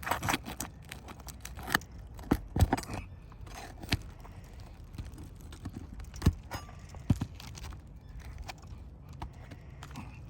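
Metal roofing tool clinking and knocking against asphalt shingles as nails are worked out, with sharp knocks at irregular intervals, the loudest about two and a half seconds in and again about six seconds in.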